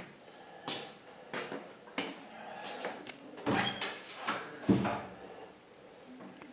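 A series of short knocks and clunks, about eight in the first five seconds, the loudest a heavier thump near the five-second mark.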